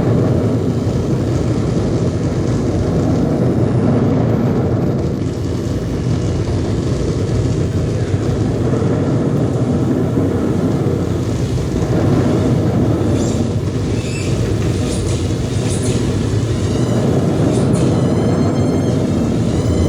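Improvised noise and drone music from DIY oscillators and circuit-bent electronics: a dense, low rumbling wall of noise. From about two-thirds of the way in, short high electronic chirps break through, and near the end there is a fast warbling glide.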